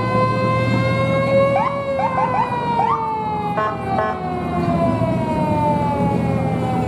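An emergency vehicle siren wailing: the tone rises slowly to a peak about two seconds in, then slowly falls. A few short rising chirps sound over it, and there is a steady low hum underneath.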